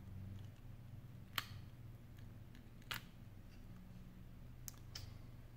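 Faint sharp clicks and taps from handling an iPhone 7 as its display assembly is lifted and swung open, about four in all, the loudest near the start, over a steady low hum.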